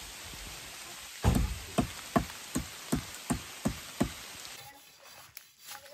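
A blade chopping into the trunk of a gaḏayka (Darwin stringybark) tree to cut away its bark: about eight sharp knocks, two or three a second, starting about a second in and stopping after about four seconds. Under them is a steady hiss of light rain, which drops away near the end.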